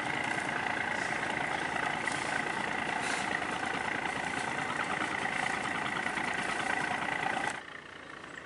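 A riverboat's diesel engine running steadily, a low hum with a high whine over it. About seven and a half seconds in, the sound drops abruptly to a quieter engine hum.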